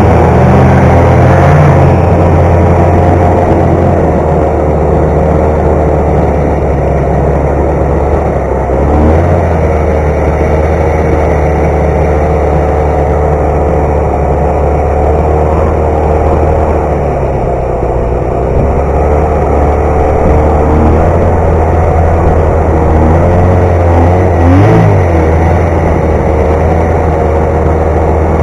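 Vintage Ski-Doo snowmobile's two-stroke engine running at low, even speed, its pitch dipping and rising a little with the throttle.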